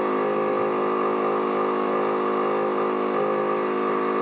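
Small air compressor running steadily, pushing smoke from a DIY smoke tester into the exhaust for a leak test. It makes an even hum with no change in pitch.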